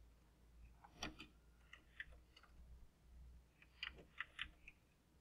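Faint, scattered keystrokes on a computer keyboard as a command is typed, a few clicks at a time in near silence.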